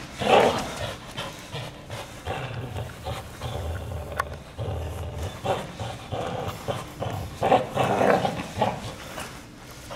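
A Belgian Malinois growling while it grips and tugs a bite pillow, with louder bursts just after the start and again near the end.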